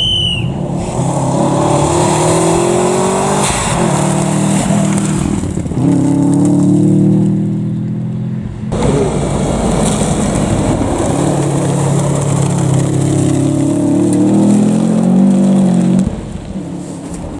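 Rally cars at full attack on a gravel stage: engines revving hard, with the pitch rising and dropping at each gear change and lift, and loose gravel hissing under the tyres. The sound cuts abruptly to another car about nine seconds in and again near the end.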